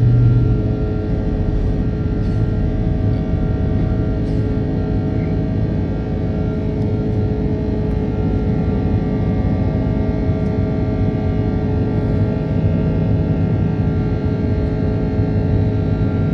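Jet airliner cabin noise while climbing after takeoff: the engines and airflow make a steady rumble with several steady whining tones over it, easing slightly about a second in.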